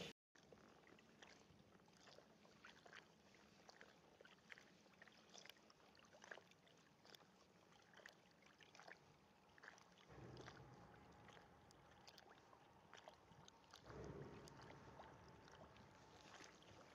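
Near silence: faint lapping of small waves on the water surface, with scattered soft ticks and two brief low swells, about ten and fourteen seconds in.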